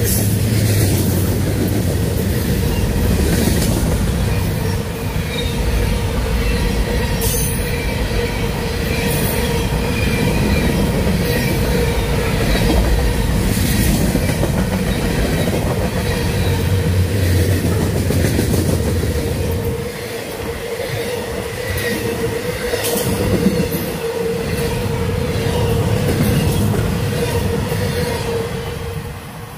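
Florida East Coast Railway freight train rolling past at close range: a steady rumble and rattle of wheels on the rail under a steady tone, with a few sharp clanks. The sound drops off near the end as the last cars go by.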